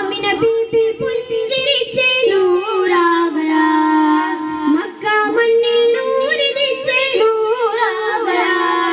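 A group of boys singing a melody together into handheld microphones, amplified through a sound system, with long held notes that slide between pitches.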